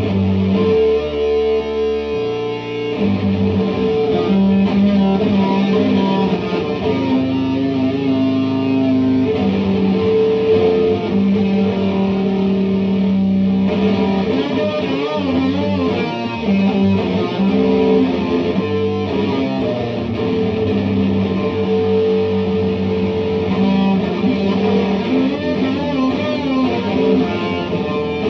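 Electric guitar played through an EarthQuaker Devices Data Corrupter, a harmonizing PLL synth pedal. It holds sustained notes that change every second or few, with a low line beneath them.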